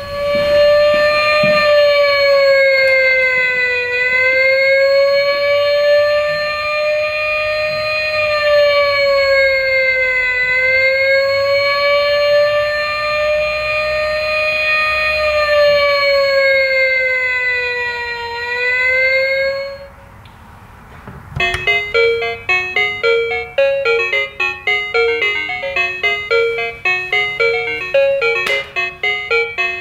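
Push-button toy emergency vehicle's sound chip playing an electronic siren, a slow wail that rises and falls about every six seconds, for about twenty seconds. After a brief gap it switches to a quick electronic jingle of short beeping notes.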